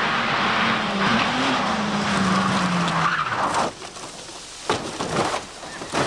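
Rally car skidding on tarmac: loud tyre noise over a slightly falling engine note, which cuts off about three and a half seconds in. Then several sharp knocks as the car crashes and ends up on its side.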